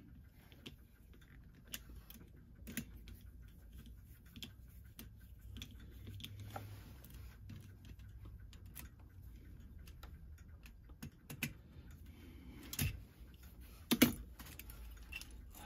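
Faint, scattered small metallic clicks and taps of hand tools on a clock movement as the nuts holding its plates together are tightened, with two sharper clicks near the end.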